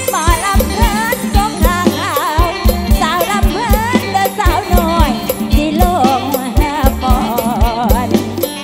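Live mor lam band music. A heavy kick drum and bass keep a steady beat about twice a second under a wavering, ornamented melody line.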